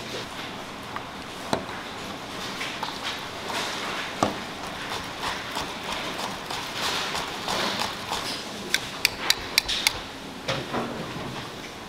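Wire whisk beating a liquid mixture in a stainless steel bowl, swishing and clinking against the metal, with a quick run of about six sharp metallic clicks about nine seconds in.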